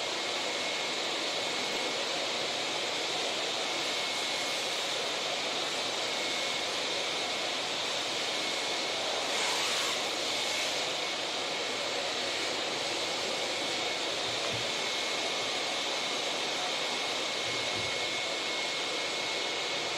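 Vacuum cleaner running steadily with a thin constant whine, its hose nozzle sucking sanding dust off the edge of a clamped paper block. A brief louder rush comes about halfway through.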